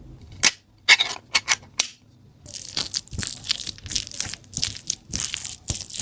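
Crisp material being crushed: five sharp cracks in the first two seconds, then a run of dense crackling crunches from about halfway in.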